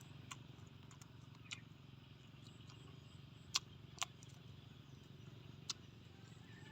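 A few short, sharp taps or clicks, five in all and spaced irregularly, over a faint steady low hum.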